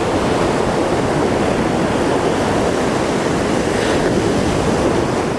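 Ocean surf breaking and washing up a sandy beach: a steady, even rush of waves.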